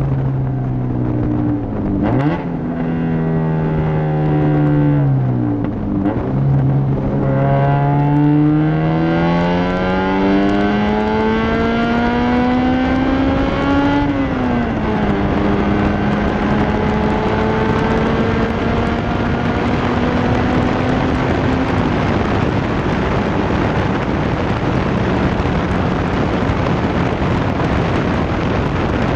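Car engine under acceleration, heard with loud wind on the microphone. Its pitch dips and recovers in the first few seconds, then climbs steadily for about eight seconds and drops sharply at a gear change about halfway through. It then holds steady before fading under wind and road noise for the last several seconds.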